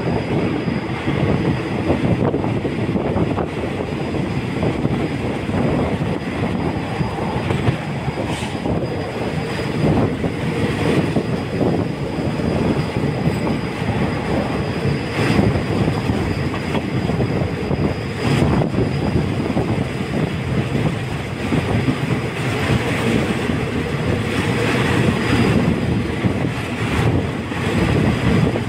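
Passenger train running, heard from on board through an open window: a steady rumble of wheels on the rails with a few sharp clacks.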